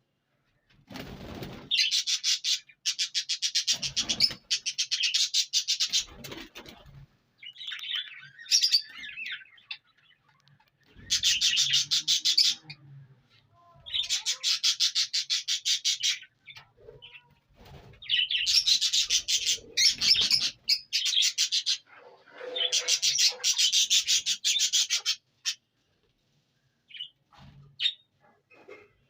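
Indian ringneck parakeet calling in bouts of rapid, high, chattering notes, each bout lasting a few seconds with short pauses between.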